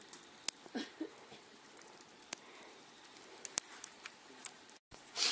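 Campfire wood crackling, with sharp pops at irregular intervals over a low hiss. A short burst of hiss comes right at the end.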